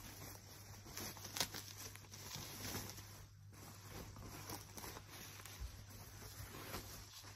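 Plastic bubble wrap rustling and crinkling as it is pulled off and unwrapped by hand, with a single sharp snap about a second and a half in.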